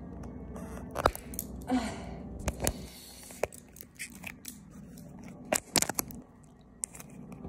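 A hard plastic phone case being pried and worked off a phone, giving irregular sharp clicks and snaps with short scrapes between them, the case stuck on tight.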